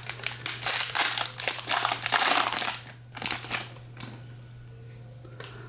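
Crinkling and crumpling of a foil baseball-card pack wrapper being handled and opened. The crinkling is dense for about three seconds, then dies down to faint handling.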